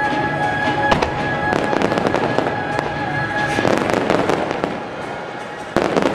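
Fireworks crackling and popping in dense, rapid volleys over music. The music's held notes stop about three and a half seconds in, and a fresh loud burst of crackling comes near the end.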